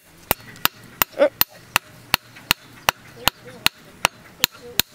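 Hand hammer forging a red-hot steel knife blade on an anvil: a steady run of sharp metal-on-metal strikes, about two and a half a second.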